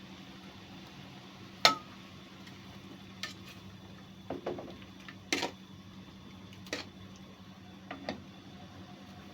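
Cooking utensil knocking and clinking against a pot as the food is stirred: about seven sharp, irregular knocks, the loudest about two seconds in, over a steady low hum.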